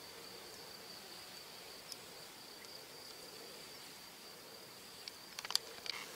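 A singing insect's steady, faint, high-pitched song, with a few small clicks near the end.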